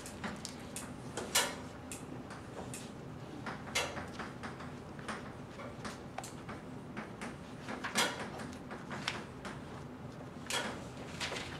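Chalk writing on a blackboard: irregular sharp taps and short scrapes as letters and numbers are chalked up, over a faint steady hum.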